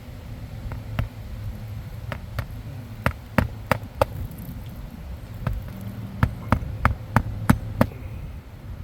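A series of sharp, irregular knocks and clicks, about fifteen of them and coming faster in the second half, over a steady low rumble.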